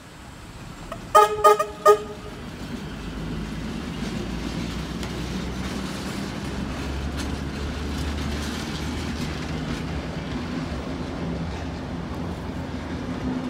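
Three short horn toots from a restored Tait 'red rattler' electric suburban train. The train then pulls away, and its low running rumble builds and holds steady as the carriages roll past.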